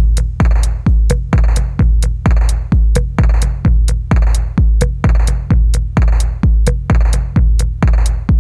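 Electronic background music with a steady drum-machine beat, a deep kick drum about twice a second, and crisp hi-hat ticks between the kicks.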